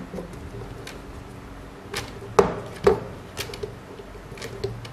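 Sharp clicks and knocks of a pop filter's clamp and gooseneck being handled and fitted onto a desktop microphone's stand base, the two loudest knocks about half a second apart near the middle.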